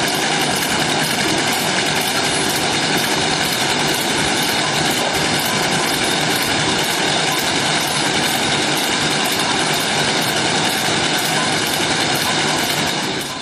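Chewing gum pillow packaging machine running: a steady mechanical clatter and whine with a regular beat about twice a second. It fades out at the very end.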